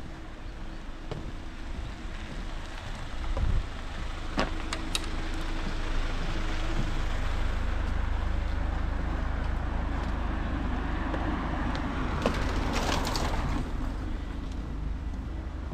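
A road vehicle passing close by: its tyre and engine noise swells over several seconds, is loudest a couple of seconds before the end, then fades. A steady low rumble sits underneath.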